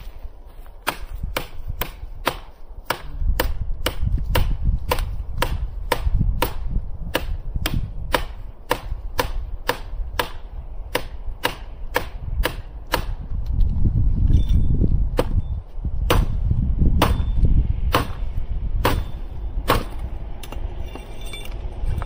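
A knife chopping into a piece of firewood: sharp, regular strikes about two a second, slowing to about one a second after about fourteen seconds.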